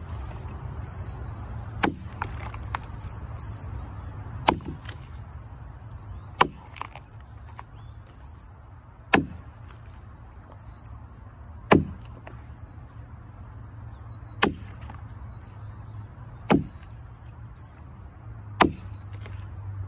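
A 5.5 lb Kentucky pattern axe chopping into a cottonwood log: eight sharp blows about every two to three seconds, a few followed by lighter clicks.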